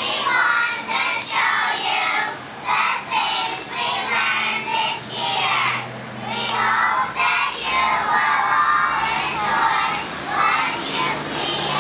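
A group of young children singing a song together in unison, in phrases of about a second or two.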